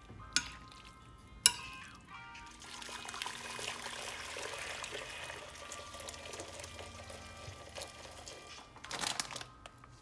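Hot water pouring from a kettle into a stainless steel pot, a steady splashing stream from about two and a half seconds in, louder briefly near the end, over background music. Two sharp clicks come in the first second and a half.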